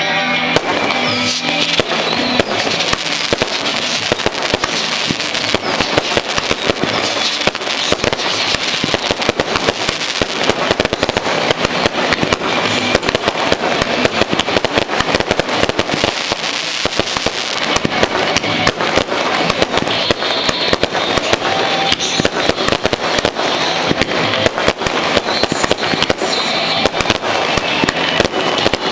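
Fireworks display: a dense, continuous run of bangs and crackles from rising shells and bursting stars.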